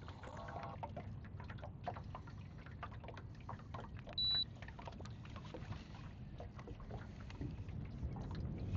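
Water lapping and trickling against a small boat's hull, with many small irregular clicks and knocks. A short, high, single-pitch electronic beep sounds once about four seconds in.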